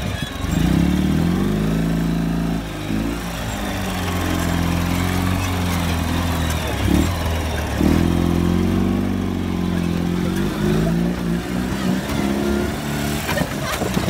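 Flat-twin engine of a 2007 Ural Patrol 2WD sidecar motorcycle running under load off-road. It revs up about half a second in, drops back around two and a half seconds, then revs up again around eight seconds in, with smaller throttle swings after that.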